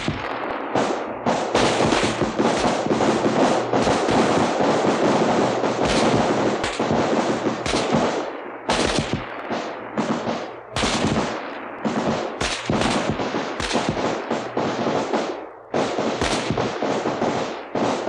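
Battle gunfire recording: many rifles firing at will, with dense, overlapping shots and a few brief lulls, including one about two-thirds of the way through.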